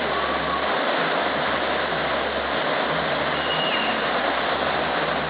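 Steady rush of a waterfall, with a short faint high note about three and a half seconds in.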